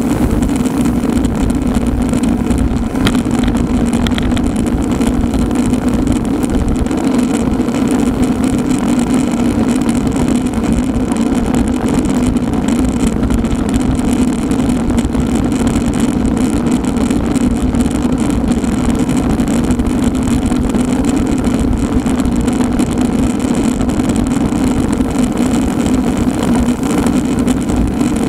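Steady rush of wind and road noise from a moving road bicycle, with a constant low hum and no break in level.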